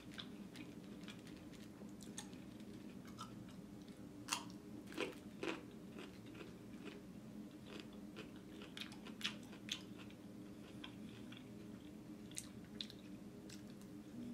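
Close-miked chewing and biting with crisp crunches, typical of raw carrot sticks eaten alongside boneless chicken wings; the sharpest crunches come about four to six seconds in and again near nine seconds. A faint steady low hum sits underneath.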